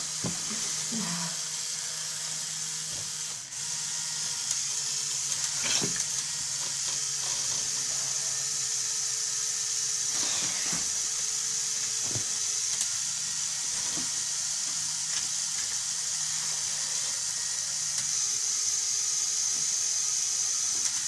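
Small electric motors of a Lego Technic excavator running with a steady whirring hum and hiss, with a few scattered clicks from the plastic gears and parts as the arm moves.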